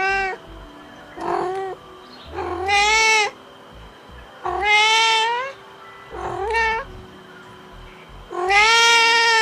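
A cat meowing over and over: about six separate meows, one every one to two seconds. Some are short and some are drawn out to about a second, each rising and then falling in pitch.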